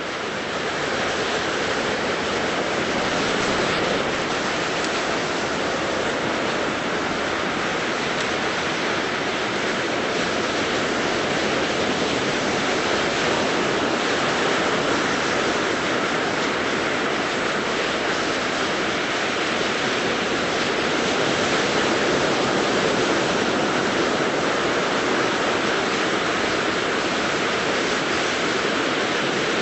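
Ocean surf: a steady, unbroken wash of small waves breaking on a beach.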